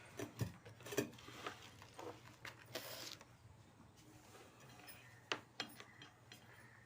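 Scattered light metallic clicks and knocks of engine parts being handled and fitted during engine assembly, with a brief hiss about three seconds in.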